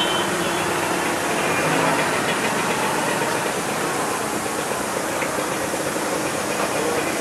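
Hot oil sizzling steadily in a large karahi as thin sheets of dough deep-fry, with a faint clink of the slotted spoon about five seconds in.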